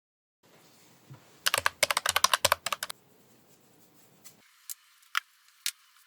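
A quick run of sharp clicks and taps lasting about a second and a half, followed by three single taps spaced about half a second apart.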